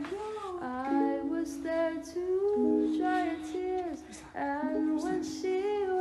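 Background music: a song with a sung melody over instrumental accompaniment.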